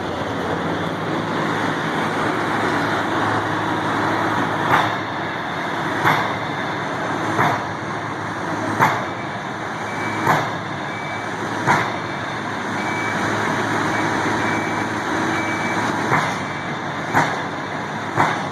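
Loud steady noise of heavy motor traffic or a large engine, with a sharp knock repeating about every second and a half.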